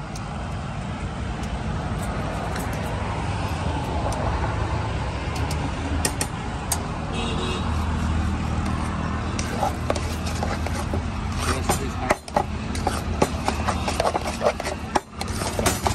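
A metal spoon clicking and scraping against a stainless-steel bowl as mashed avocado is stirred, the clinks coming thickly in the second half. Under it, a running engine's steady low rumble.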